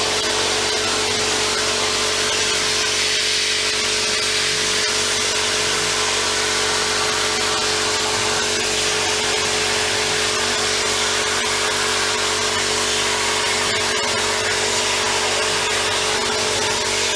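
Homemade CNC plasma torch cutting steadily, a continuous loud hiss with a steady tone under it.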